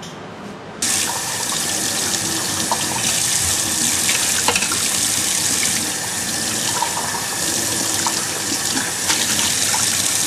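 Kitchen tap running full, its stream splashing over a ceramic mug and into a stainless steel sink; the rush of water starts suddenly about a second in, with a few faint clinks.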